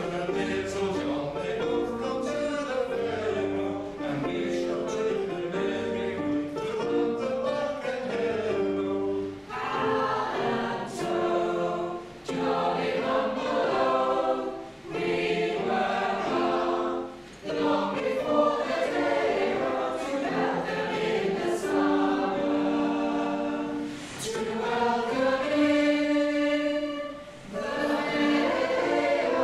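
Mixed choir of men and women singing a traditional Cornish folk song in several parts, in phrases with brief breaks between them.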